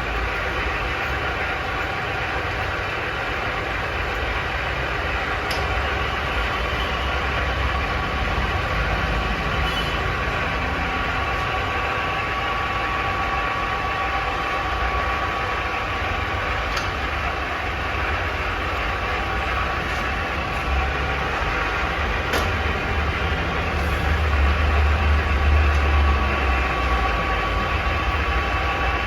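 Heavy-duty all-geared Kirloskar 400 lathe running steadily: a constant mechanical rumble with a steady gear whine and occasional light clicks, swelling a little near the end.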